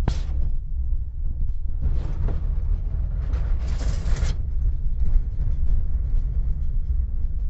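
A vehicle running with a steady low rumble, with gusts of wind noise on the microphone about two seconds in and again between three and four seconds.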